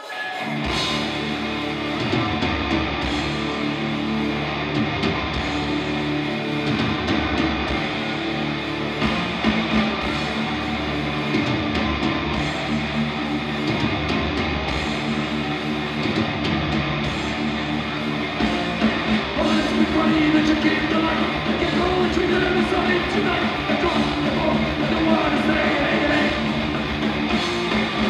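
Live heavy metal band playing loudly: distorted electric guitars, bass and drums, kicking in abruptly about half a second in and then driving on steadily.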